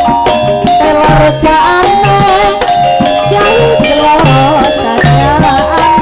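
Traditional Javanese dance music for Emblek: hand drums beat a steady rhythm under ringing metallic percussion tones, with a wavering high melody line above.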